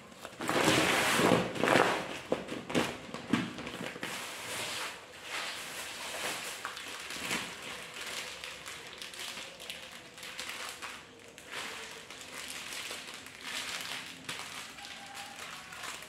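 Plastic packaging rustling and crinkling as groceries are unpacked from a plastic bag. In the first two seconds there is louder shuffling and rustling as a 25 kg woven plastic rice sack is handled and pushed on the floor.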